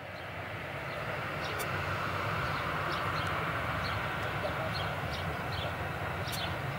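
Boeing C-17 Globemaster III's four turbofan engines giving a steady jet roar on landing approach, with a deep rumble underneath. Small birds chirp briefly over it several times.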